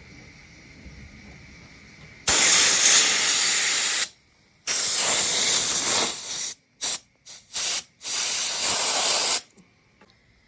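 Compressed air from an air compressor hissing as it is blown under a tight rubber ATV grip to break the grip's seal on the smooth handlebar so it can be pushed on. It comes in blasts: a long one about two seconds in, a second long one, three short puffs, then a last long blast near the end.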